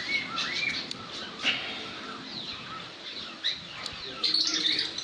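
Small birds chirping repeatedly in short arched calls, with a few sharp clicks of handling, the loudest about a second and a half in.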